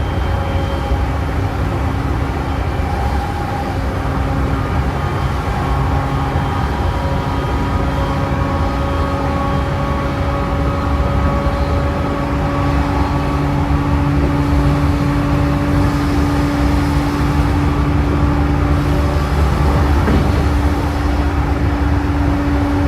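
E233-series electric train running: a steady whine from the traction motors and inverter over the low rumble of the wheels on the rails, growing slightly louder through the middle.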